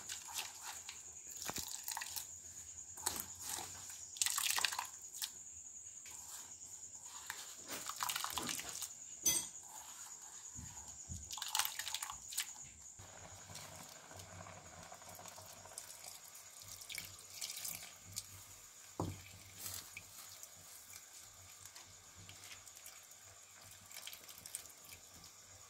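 Freshly grated coconut kneaded and squeezed by hand with water in a metal bowl, making wet squelching and dripping sounds as coconut milk is pressed out. The squeezing comes in repeated short bursts through the first half and is quieter after that, over a steady high thin whine.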